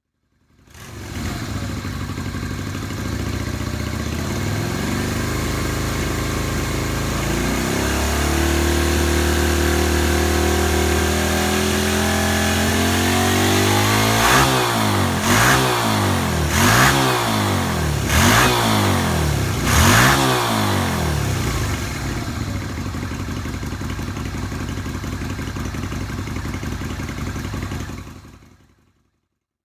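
Yamaha XV250 Virago's air-cooled V-twin running through Daytona drag pipes. It idles, its revs climb slowly, then it is blipped five times about every second and a half before settling back to idle. The sound cuts off abruptly near the end.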